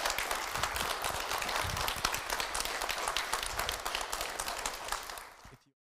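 Audience applauding, a dense patter of many hands clapping that fades out and stops about five seconds in.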